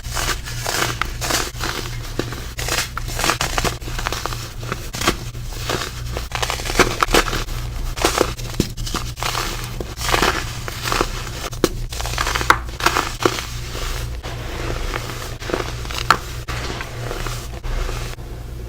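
Compressed baking soda being crumbled and crushed, a dense, irregular run of crisp crunches with a squeaky, snow-like crunch.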